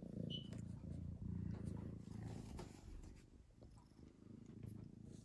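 Tabby-and-white kitten purring, a low rumble pulsing with its breathing; it weakens after about three seconds and picks up again near the end.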